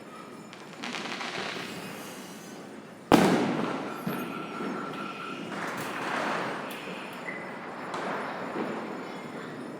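Firecrackers and fireworks going off in the distance and close by, with crackling bursts and one sharp, loud bang about three seconds in that echoes away.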